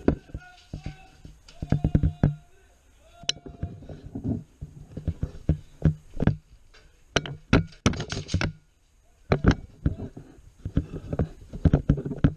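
A series of sharp clicks and knocks in irregular clusters, with a quick run of them a little past the middle.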